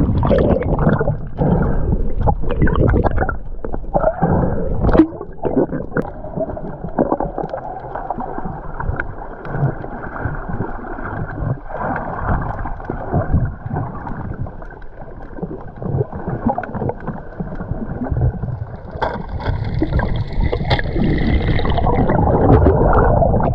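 Sea water sloshing and gurgling, heard muffled and dull, with irregular small knocks throughout.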